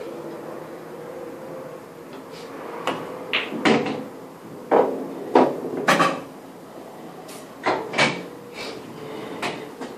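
Pool balls clacking: about ten hard, unevenly spaced knocks starting about three seconds in, some coming in quick pairs.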